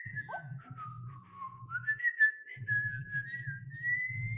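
Ropet companion robot whistling a short tune. A single whistled line dips lower over the first second or so, then rises and holds higher, over a low hum.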